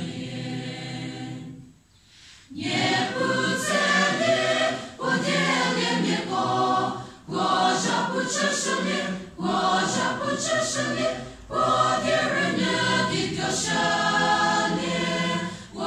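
Mixed choir singing. A held chord breaks off about two seconds in, and after a short breath the choir sings on in phrases with brief pauses between them.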